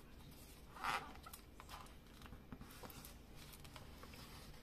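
Faint handling sounds as hands press a round plastic shaker dome onto a paper card: light taps and rubbing, with one short louder rustle about a second in.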